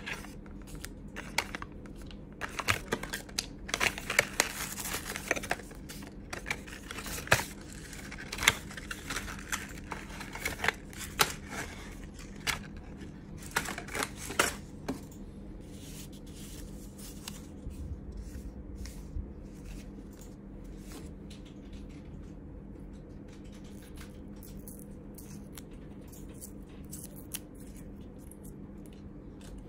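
Cardboard packaging and paper inserts being handled: rustling, scraping and small clicks as the box's inner tray and printed guides are lifted out. The handling is busy for about the first half, then dies down to a few faint rustles.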